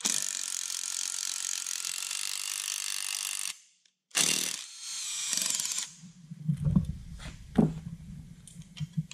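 Cordless impact driver running in two runs, about three and a half seconds, then a brief stop and a second, shorter run. It is turning an insert-nut (Nutsert) setting tool, drawing up and crushing an insert nut into a metal plate. A few light knocks follow.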